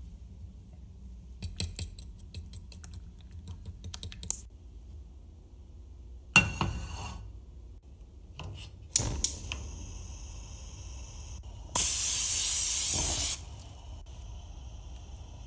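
A fork clinking irregularly against a bowl while mixing pancake batter, then a sharp clatter. A gas stove burner clicks and lights and hisses steadily. About twelve seconds in, the loudest sound: a hissing burst of cooking spray into the frying pan lasting about a second and a half.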